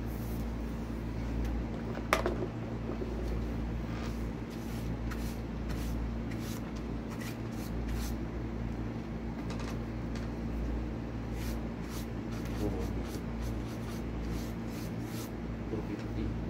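Steady low electrical hum with scattered light clicks and taps, and one sharper knock about two seconds in.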